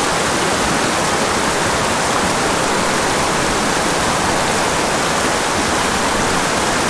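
Small mountain creek rushing over rocks in a shallow riffle: a steady, loud rush of water.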